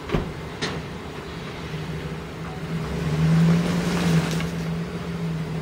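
Pickup truck engine running steadily under load in four-wheel drive, pulling a rooted shrub out of the ground by a chain. It gets louder about three seconds in as it strains, and there is a short knock near the start.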